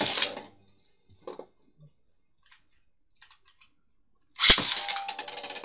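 A sharp plastic crack and a few faint clicks of handling, then about four and a half seconds in Beyblade Burst tops are launched with a crack into the clear plastic Battle Tower stadium and spin, clattering and knocking against each other.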